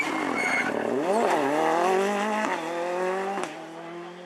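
Rally car's engine revving hard as it passes and accelerates away, the pitch climbing and dropping at two upshifts, then fading. A high steady squeal sounds briefly at the start.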